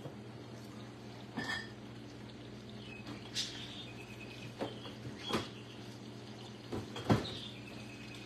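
Spice jars clicking and knocking as they are taken from and put back on a cabinet spice rack and handled: a handful of separate short knocks, the loudest about seven seconds in, over a steady low hum.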